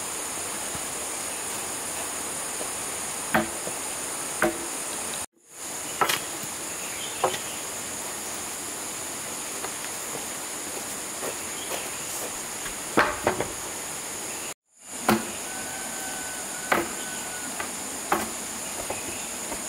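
A steady high insect drone, like cicadas or crickets, with scattered sharp knocks every few seconds of work with hand tools. The sound cuts out completely twice for a moment.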